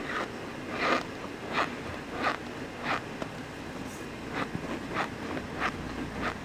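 A steady run of short crunches, about one every two-thirds of a second. The one near a second in is the loudest.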